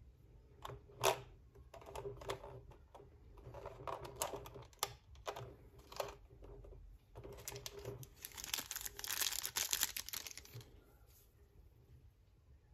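Clear plastic blister tray and small plastic figure parts handled: scattered clicks and taps, the sharpest about a second in, then a few seconds of plastic crinkling and crackling near the end.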